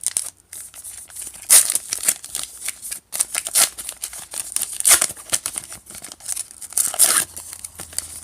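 A trading card pack being torn open, its wrapper ripping and crinkling in a series of sharp tears, the loudest four spread out a second or more apart.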